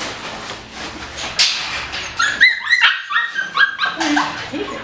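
Husky mix puppy yipping and whining, a quick run of short, high cries about two seconds in.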